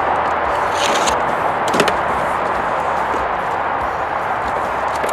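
A cardboard box being handled and opened: a brief scrape about a second in and a couple of sharp clicks just under two seconds in, over a steady background hiss.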